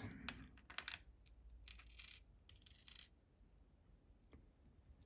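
Faint clicks and clinks of small metal lock parts, the tumblers and gear wheels of a Fichet F3D cylinder, being slid off and set down one by one. Most come in the first three seconds, with one more a little after four seconds.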